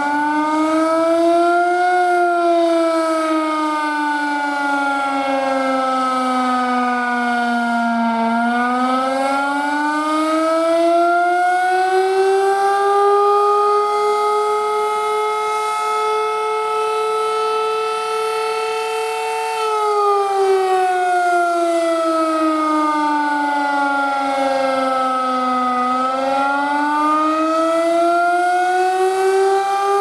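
Federal Sign & Signal Model 5A three-phase fire siren sounding an attack signal. Its loud tone winds up and down in slow sweeps several seconds long and holds high for a few seconds midway, from a siren its owner believes is under-powered, running on about 125 V.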